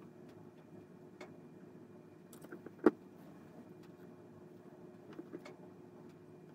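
Hand soldering on a small circuit board: a faint steady hum with a few light clicks and one sharp tap just under three seconds in, from the soldering iron and board being handled.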